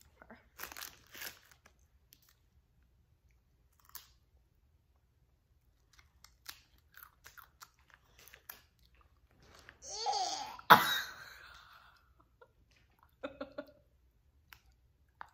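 Potato crisps crunching in scattered bites as they are chewed. About ten seconds in, a short voice sound falling in pitch and a sharp knock, the loudest moment.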